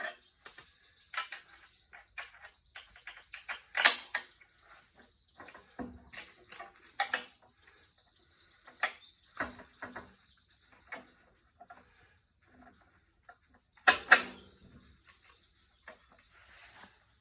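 Irregular metal clinks and knocks of hand tools and engine parts being handled while the replacement engine is lined up and bolted onto the tiller frame, with two louder clanks about four seconds in and near fourteen seconds. A faint steady high tone runs underneath.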